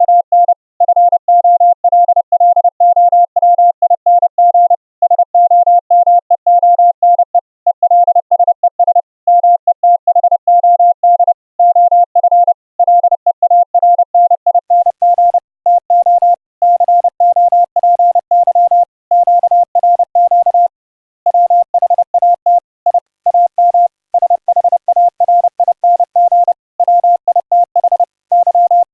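Morse code (CW) audio tone sent over an internet audio link, keyed rapidly in dots and dashes at one steady pitch. About halfway through, faint hiss and crackle come in behind the tone.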